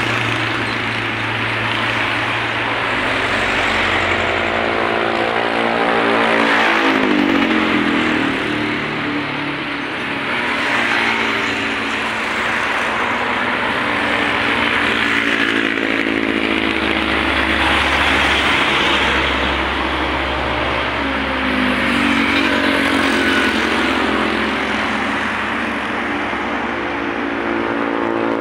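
Road traffic going by: motorcycles, cars and trucks passing one after another over a steady rush of tyre noise, their engine notes rising and falling in pitch as they pass.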